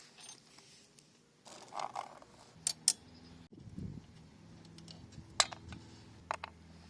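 Scattered sharp metallic clicks and clinks of small metal parts being handled, such as a pocket bike's drive chain and tools, with a faint steady hum coming in about two and a half seconds in.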